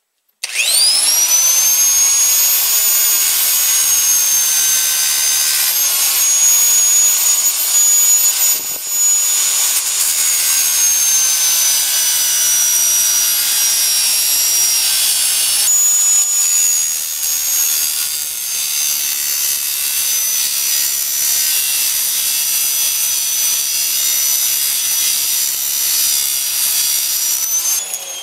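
Angle grinder with a cutoff wheel spinning up and cutting through the welds of a microwave oven transformer's steel frame: a steady high whine with grinding, easing briefly a couple of times, and winding down at the very end.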